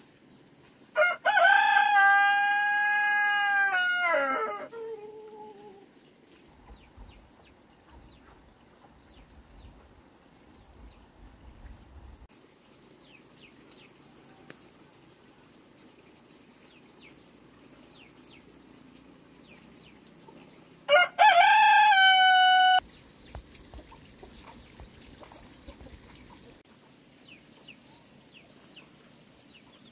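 A rooster crowing twice, about twenty seconds apart: a long crow of about three seconds near the start that ends in a falling tail, and a shorter crow later on. Faint high chirps can be heard in between.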